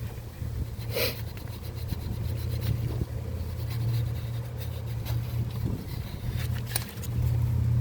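Mercedes-Benz M119 V8 engine idling with a steady low rumble, newly fitted with a replacement throttle body. Light clicks sound about a second in and again near the end.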